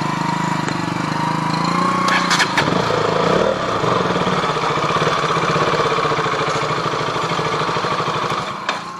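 KTM RC 200's single-cylinder engine running while the bike is ridden, its pitch rising a little in the first two seconds and then holding steady. A few sharp clicks come about two and a half seconds in, and the engine sound falls away near the end.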